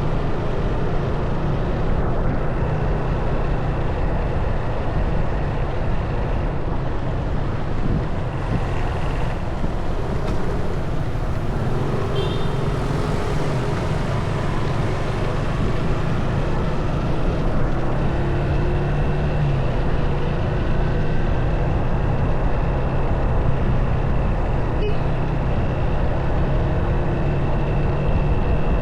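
Motorcycle engine running at a steady cruise with road and wind noise while riding. A thin high whine comes and goes over it.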